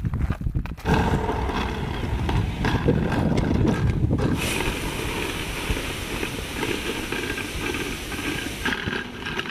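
Wheels of a rolling suitcase rattling over a rough gravel path, with footsteps in sandals. The sound changes about four seconds in, gaining a higher hiss.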